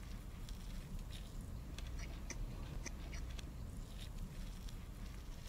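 A man chewing a bite of fried chicken sandwich close to the microphone: faint, irregular clicks and crunches over a steady low hum.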